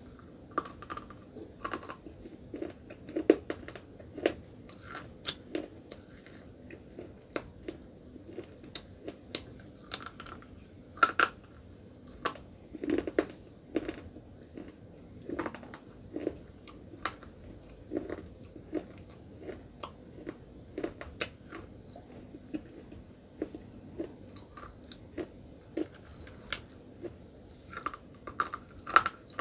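White slate pencils being bitten and chewed: sharp crunching snaps at an irregular pace of about one or two a second, with softer grinding crunches in between.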